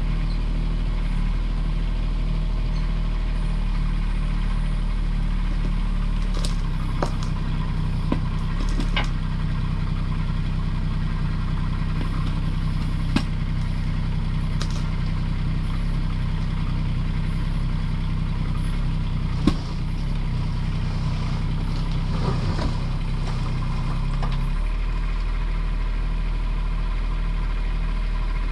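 Kubota U10 mini excavator's diesel engine running steadily. Its note changes about six seconds in, as the machine works its hydraulics to lift a strapped oil tank, and settles back a few seconds before the end. A scattering of clanks and knocks comes over it, the sharpest about two-thirds of the way through.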